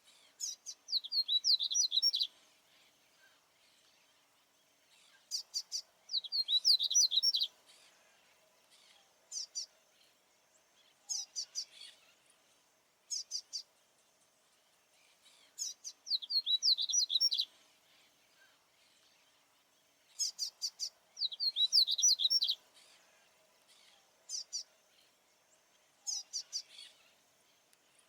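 Male papa-capim baianinho, a Sporophila seedeater, singing its territorial song. It gives high, quick phrases every few seconds, each a few sharp notes followed by a rapid run of downward-sweeping notes about a second and a half long, with shorter fragments in between.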